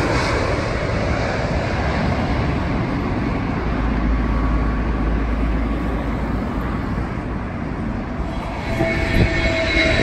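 Jet airliner on final approach, its engine noise slowly fading as it flies on past toward the runway. Near the end the engine whine of a second approaching jet comes in.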